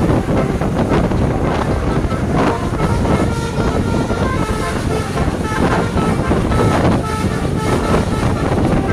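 A bus's basuri musical horn playing a tune of short notes that change pitch, over heavy low rumble and wind noise on the microphone.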